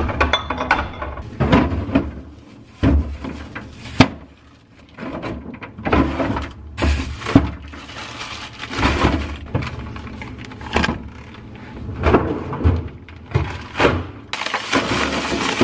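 Groceries being put away in a refrigerator: plastic produce bags rustling, bottles and packages knocking onto the shelves and door bins, with sharp clunks now and then and a longer rustle near the end.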